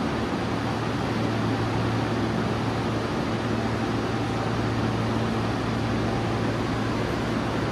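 Steady low hum and fan-like hiss of a Yokohama Municipal Subway 3000S-series train standing at an underground platform, its air conditioning and auxiliary equipment running.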